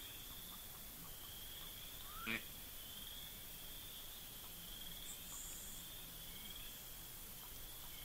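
Wetland outdoor sound: a steady, high, buzzing trill runs through, breaking off briefly about a second in, and one short, sharp call stands out about two and a half seconds in.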